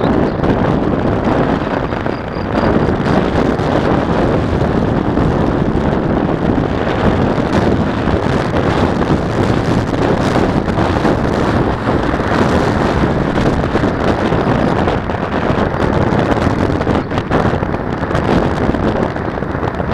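Steady wind rumble buffeting the microphone of a Mobius action camera mounted on a moving bicycle.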